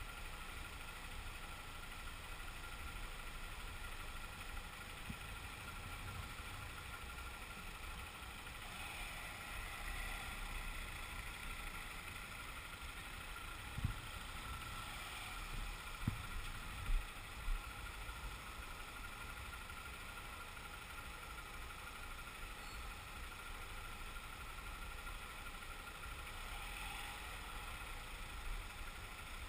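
Motorcycle engine running at low speed in slow traffic, heard from a camera mounted on the bike, with surrounding car noise. A few short knocks come about halfway through.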